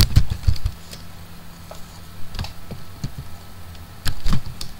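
Typing on a computer keyboard: a quick run of key clicks at the start, a few scattered taps in the middle, and another short run near the end, over a faint low steady hum.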